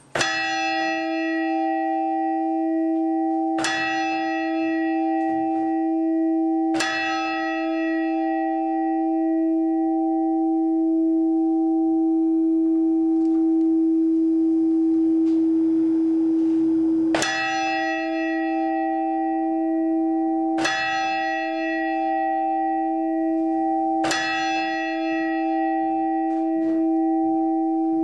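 Church bell (bell 4 of the former Christophoruskirche, Hamburg-Altona) struck six times, in two groups of three strikes about three and a half seconds apart, with a pause of about ten seconds between the groups. Each strike sets off a bright cluster of overtones that fades quickly, while the bell's deep hum keeps sounding steadily between strikes.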